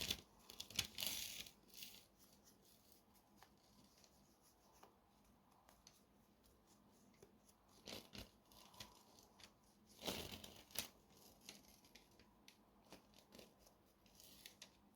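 Faint, intermittent rustling and light clicks of small objects being handled, in brief clusters at the start and again about eight and ten seconds in.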